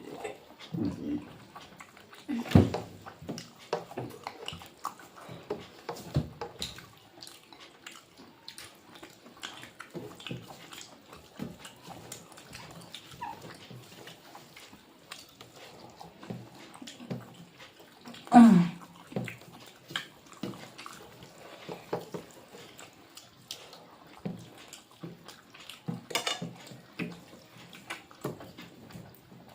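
Close-up eating sounds: a person chewing and smacking their lips through many small wet clicks. Two louder short sounds stand out, about 2.5 and 18.5 seconds in, the second falling in pitch.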